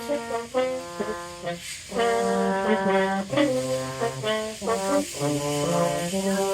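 Two French horns playing a slow duet, one carrying the tune while the other moves in a lower part beneath it.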